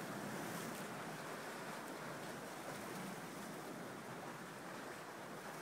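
Adriatic sea surf: small waves washing against rocks and drawing back, a steady, even wash.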